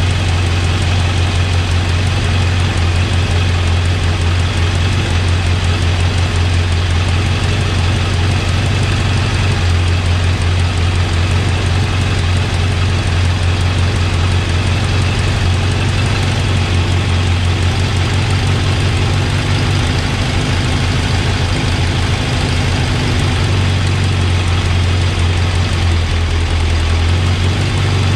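Kawasaki motorcycle engine idling steadily on its freshly rebuilt Keihin carburettors, run up to temperature for carb balancing.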